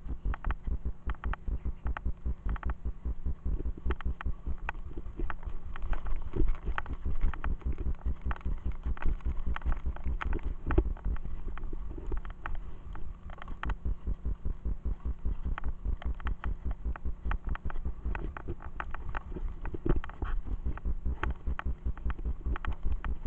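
Mountain bike ridden fast over a rough forest dirt trail, heard from a camera fixed to the rider or bike: a rapid run of low knocks several times a second from the bumps and the mount, with frequent sharp clicks and rattles from the bike.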